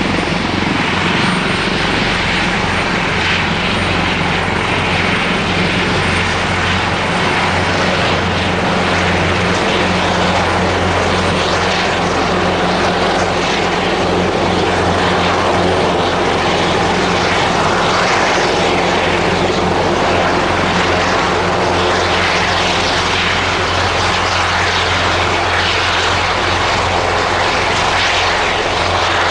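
Airbus EC225LP Super Puma helicopter running close by: a steady, loud mix of rotor and turbine engine noise, with a thin high whine that fades out after the first several seconds.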